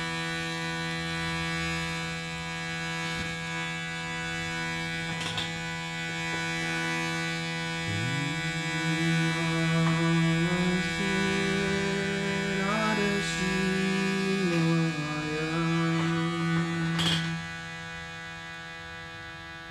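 Shruti box drone, held steady by the pumped bellows. About eight seconds in, a low sung overtone-singing tone joins it; the voice slides up into its note and its whistle-like overtones shift in pitch now and then. The voice stops near the end, leaving the drone alone and quieter.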